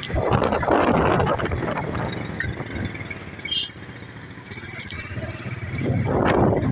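Motorcycle engines running in slow, dense traffic, a steady low hum, with wind buffeting the microphone in louder rushes near the start and again near the end.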